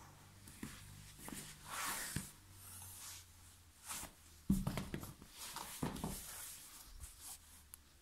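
Fabric rustling and scuffing as a sneaker is pulled off a foot, with a sharp thump about four and a half seconds in as the shoe drops onto the tiled floor. Softer knocks and shuffling follow.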